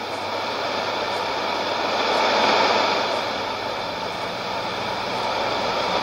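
Shortwave static hiss from a Sony portable receiver tuned to 7330 kHz AM, with no programme audio. It swells a little in level a couple of seconds in.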